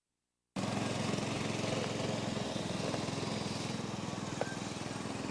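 Silence, then a little after the start a steady engine drone cuts in and runs on at an even pitch.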